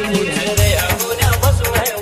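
DJ remix dance track: a heavy bass beat kicks in about half a second in, under a wavering melody line and quick, even high ticks.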